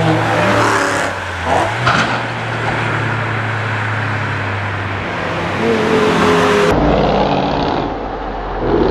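A race car's engine running hard on a circuit, its pitch holding and rising as it accelerates, with a couple of sharp knocks about one and a half and two seconds in. About seven seconds in the sound cuts to a duller, muffled recording of a car with a low rumble.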